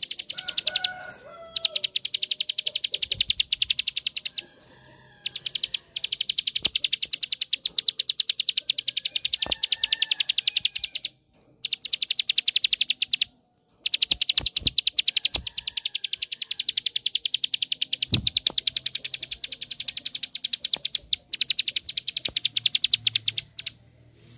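Ciblek sawah, a prinia, singing its 'ngebren' song: long, rapid machine-gun trills of fast, even, high clicks, in trains several seconds long broken by short pauses.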